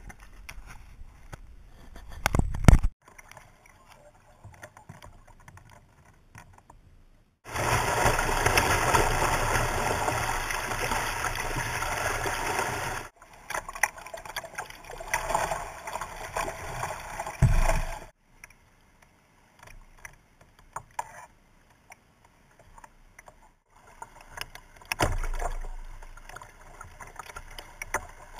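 Kayak on a river heard up close from the boat: water rushing past the hull and splashing, in stretches that start and stop abruptly, with a heavy knock about two and a half seconds in.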